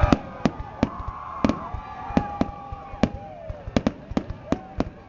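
Fireworks going off: a quick, irregular run of sharp cracks and pops, about three a second.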